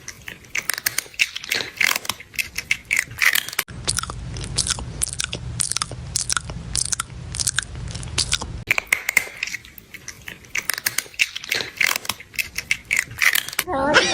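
Crunchy chewing and biting, a rapid irregular run of sharp crunches, as of something eating crisp food. A low hum sits behind it for a few seconds in the middle.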